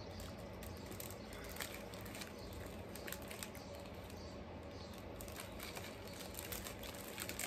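Faint scattered clicks and crackles of chewing a strawberry cream pie and handling its plastic wrapper, over a low steady hum.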